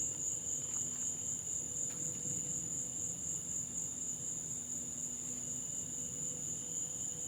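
Steady, high-pitched chorus of evening insects, an unbroken shrill drone.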